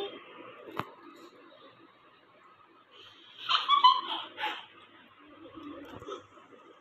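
A child giggling in a short burst of about three laughs, roughly three and a half seconds in, with a single sharp click about a second in.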